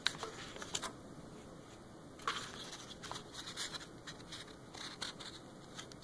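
Faint scattered clicks and scrapes of lead .575 Minie balls being pressed by hand through holes in a wooden sizing board, which shaves the excess beeswax-and-tallow lube off the bullets.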